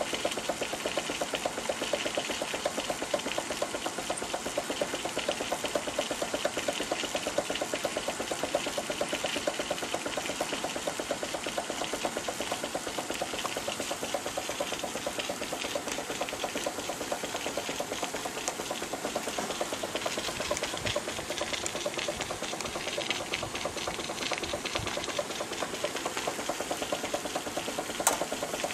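Fleischmann 135/2 live steam engine running steadily, a fast, even mechanical beat. A single sharp click near the end.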